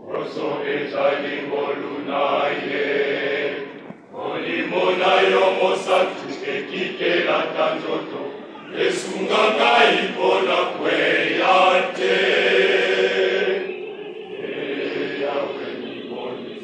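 A choir of boys and young men singing together under a conductor, in phrases with short breaks about four and eight and a half seconds in.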